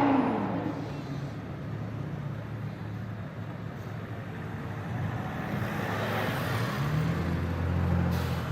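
BMW M4 F82's twin-turbo straight-six through a loud aftermarket Fi exhaust: a sharp rev right at the start that falls away, then low steady running, with the engine note building again near the end.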